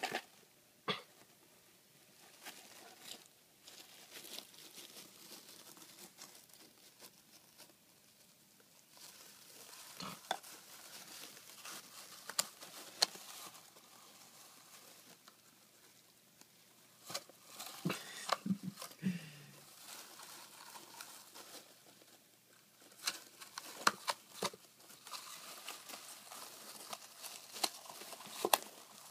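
A pet hedgehog rummaging through dry wood-shaving bedding: the shavings rustle and crunch in bursts, with scattered sharp crackles and clicks.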